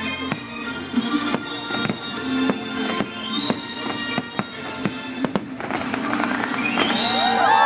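Fireworks show soundtrack music, with many sharp firework bangs going off over it at irregular intervals. Near the end, a crowd starts cheering.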